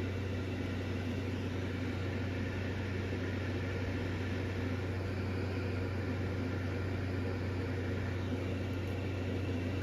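Steady low hum with an even hiss, unchanging throughout: room background noise with no distinct events.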